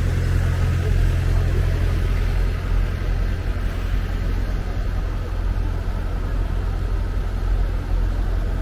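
Steady low rumble of road traffic and vehicle engines on a busy city street.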